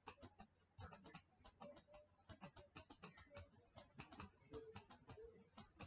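Faint, irregular tapping and clicking of a stylus on a tablet during handwriting.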